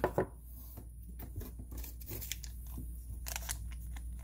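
Faint handling noises: scattered small clicks and crinkles as a small packet of brake-assembly lube is worked open by hand, over a steady low hum.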